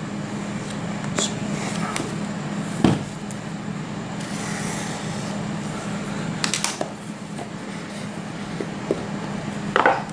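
Cardboard smartphone box being handled and opened on a wooden table: a few scattered taps and knocks as its seal is slit with a pen and the lid is taken off, over a steady low hum.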